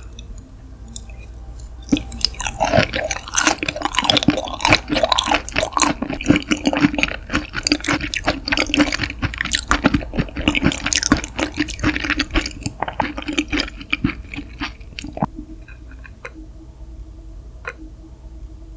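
Close-miked wet chewing of raw seafood: squishy smacking and clicking mouth sounds, dense from about two seconds in and thinning out to a few scattered clicks near the end.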